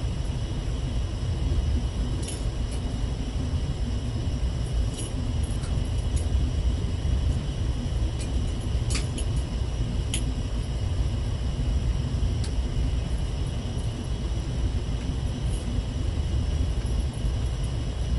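Steady low machinery rumble with a faint constant hum, and a few light clicks of small parts being handled and fitted together.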